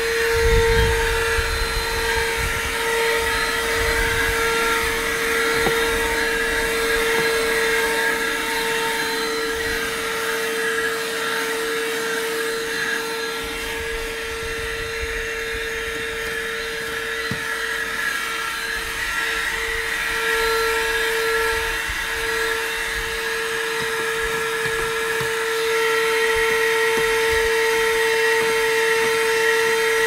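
Handheld car vacuum cleaner running, a steady high-pitched motor whine with a rush of air as its nozzle is worked over a car's dashboard and air vents. The sound sags a little in the middle and swells again near the end.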